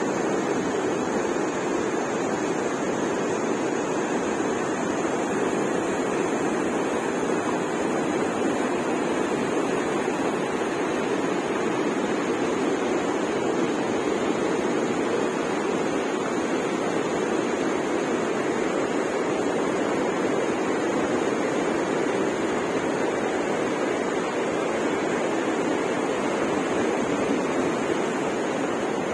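Muddy river water pouring over low concrete weirs and churning in a walled channel, a steady, unbroken rushing.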